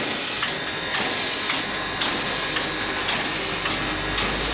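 US Army 2-8-0 steam locomotive No. 610 working under steam, its exhaust chuffing in a steady beat of about two a second, with a low rumble building from about a second and a half in.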